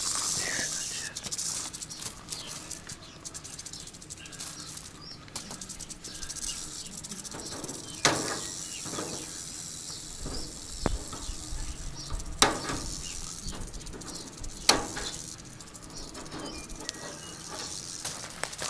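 Tin snips cutting strands of chicken wire: three sharp clips, about 8, 12 and 15 seconds in.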